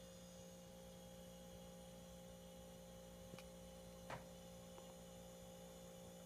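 Near silence with a faint steady hum, and two faint clicks a little over three and four seconds in.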